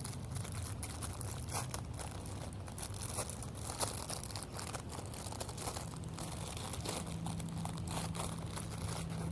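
Plastic sleeve of Ritz crackers crinkling as it is handled, in irregular crackly bursts.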